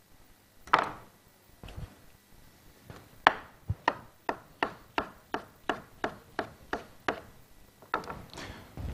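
Chef's knife slicing a banana on a cutting board: a single knock about a second in, then an even run of knocks, about three a second, for some four seconds as the blade hits the board.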